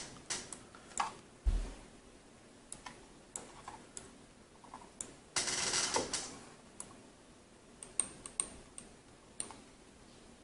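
Small plastic clicks and taps from a gaming mouse being handled as its parts are pressed back into place, with a low knock about a second and a half in and a scratchy rustle lasting about a second near the middle.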